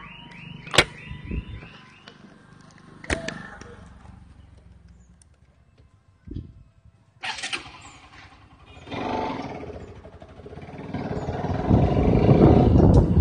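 A few sharp clicks, then a motorcycle engine starting about seven seconds in. Over the last few seconds the engine and wind noise grow steadily louder as the bike pulls away.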